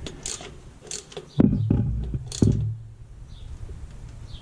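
Hand tools clicking and clunking against the carburetor and its bracket bolts as they are tightened down, with two louder knocks about a second apart near the middle.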